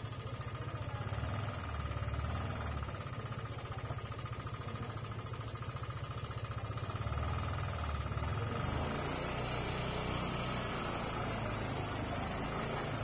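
An engine idling steadily, a low pulsing hum, over outdoor background noise.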